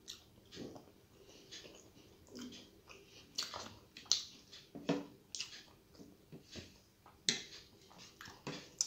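Close-up chewing of a mouthful of rice and fish curry eaten by hand, with irregular wet lip smacks and mouth clicks a few times a second.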